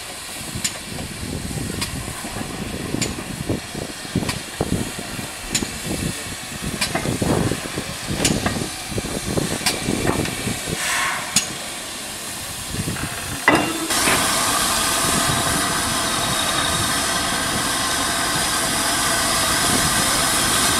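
GWR 2800 class 2-8-0 steam locomotive No. 2857 moving slowly, with a slow, regular beat of exhaust chuffs about once a second over hissing steam. About fourteen seconds in this gives way abruptly to the steady running of a diesel locomotive's engine.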